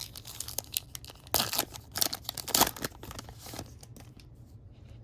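Crinkling and rustling of plastic packaging as trading cards are handled, in several bursts that die down after about three and a half seconds.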